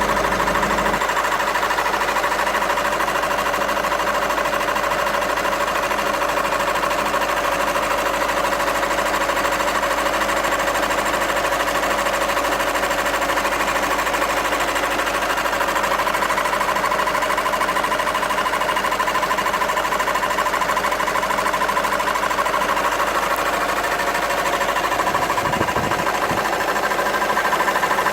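VW 2.0 TDI (CFHD) four-cylinder common-rail diesel engine running with a steady, rapid mechanical noise that sounds like a tractor. The owner cannot explain the noise and is asking what causes it.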